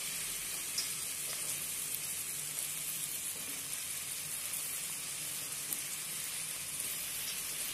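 Sliced onions, shallots and whole spices frying in oil in a wok with freshly added tomato slices: a steady sizzle with a few faint crackles.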